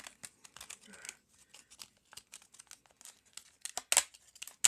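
Serrated stainless-steel pocket knife blade sawing into a cardboard box: a run of short scratchy rasps and crinkles, the loudest about four seconds in.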